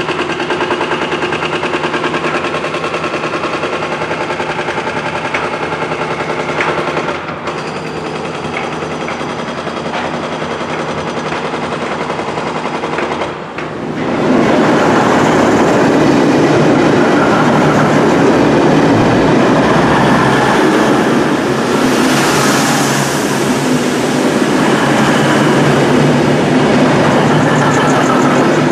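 A V/Line VLocity diesel railcar running, a steady multi-toned engine drone. About halfway through it gives way to the louder rush and rumble of a V/Line passenger train's carriages passing close by at speed.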